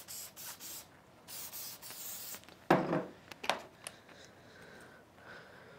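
Aerosol spray can hissing in a few short bursts, then one longer spray of about a second. A loud knock follows about halfway through, then a few small clicks.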